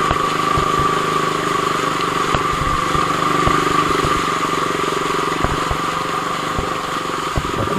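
KTM motorcycle's single-cylinder engine running steadily at low revs, with scattered faint clicks.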